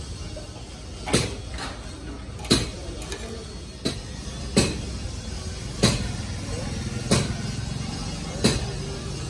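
Sharp metal-on-steel taps against an excavator boom's steel plate at a crack, seven of them at roughly one-and-a-half-second intervals, over a steady low hum.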